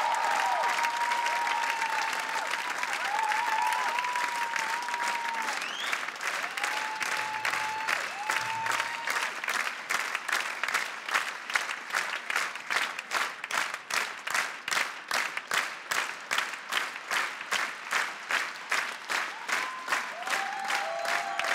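A theatre audience applauding a band's curtain call, with a few whistles. About halfway through, the applause settles into steady rhythmic clapping in unison, about two to three claps a second.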